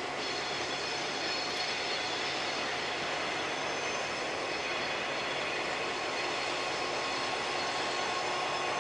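An EMD FP9 diesel locomotive leading a GP7 approaches with its 567 engines running steadily under a rumble of the moving train. A faint, steady high-pitched whine sits over the rumble.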